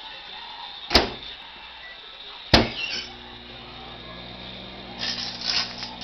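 A microwave oven gives two sharp clacks about a second and a half apart, as it is shut and switched on. Then it starts running with a steady low hum. Near the end comes a brief burst of crackling as the CD inside starts to spark.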